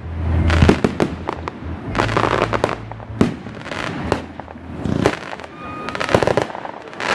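Fireworks display: a rapid series of shell bursts, sharp bangs with crackling tails, and deep low rumbling booms in the first second and again around two to three seconds in.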